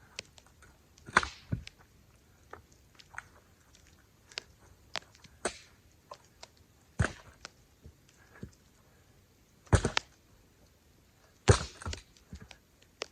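Chunks of firewood being thrown into a pickup truck's bed: a handful of heavy thunks at irregular intervals a few seconds apart, with lighter knocks and clatter between.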